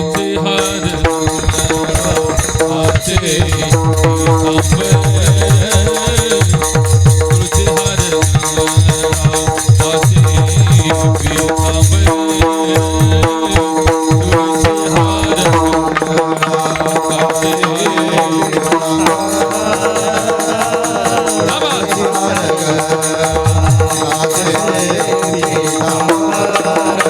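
Kirtan music: a hand drum plays a fast, dense rhythm under held, steady harmonium-like notes. The deep drum strokes drop away about two-thirds of the way through while the held notes go on.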